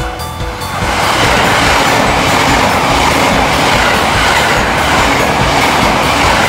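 JR East E353 series limited express electric train passing through the station at speed: a loud rush of wheel and air noise that builds about a second in, holds steady, and falls away near the end.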